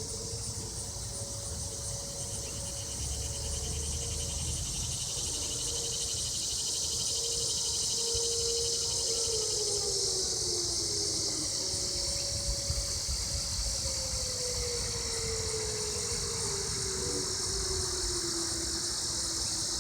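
Distant outdoor tornado warning sirens sounding in a test: faint steady tones that slide lower in pitch around the middle and again near the end as the sirens wind down. A steady chorus of chirping insects runs underneath and is the loudest sound.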